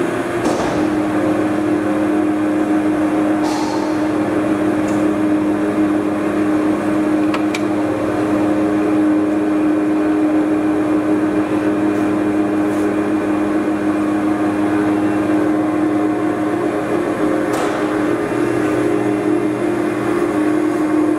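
Poreba heavy-duty engine lathe running, with a steady hum from its motor and headstock gearing. A few short clicks sound as the carriage apron levers are worked.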